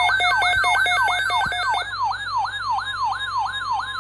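Electronic siren tones sweeping rapidly up and down in pitch, switching from a fast falling yelp to a slower rising whoop a little under halfway through; a steady tone joins near the end.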